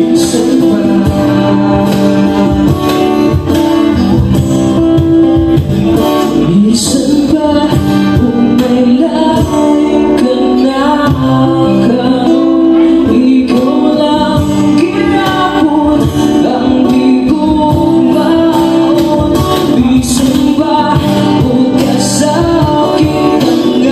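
Live acoustic band: a male lead vocal sung through a microphone and PA over acoustic guitar chords and a cajon beat.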